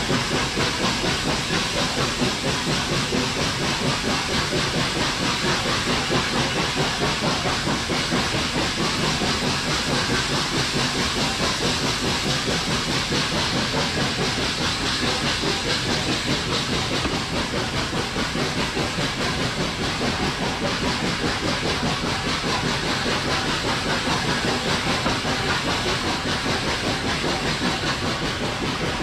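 Hunslet 0-6-0 saddle-tank steam locomotive running along the line: a steady hiss with a fast, even pulsing of exhaust beats and wheels on the rails.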